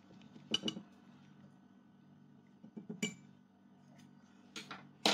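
Utensils clinking against plates and dishes while food is being served: a few separate sharp clinks, one about half a second in, one around three seconds, and the loudest right at the end, over a faint low hum.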